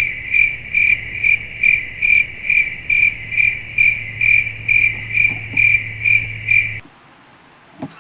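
Cricket chirping sound effect: a high, even chirp pulsing about twice a second over a low hum, cutting off suddenly about seven seconds in. It is the stock 'crickets' gag for an awkward silence after a joke falls flat.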